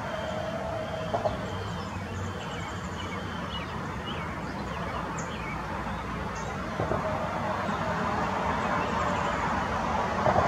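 Short, high bird chirps and calls over a steady rumble of road traffic; the traffic grows louder near the end.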